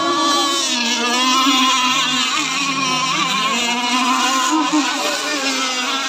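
Remote-control racing powerboats running fast across open water, their motors giving a high-pitched note that rises and falls as they race.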